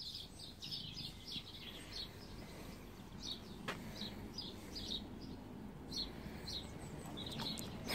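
Faint, short high chirps of small birds, coming at uneven intervals.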